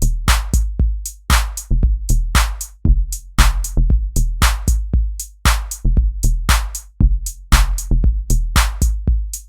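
Electronic background music with a steady drum-machine beat of deep bass kicks and sharp snare-like hits.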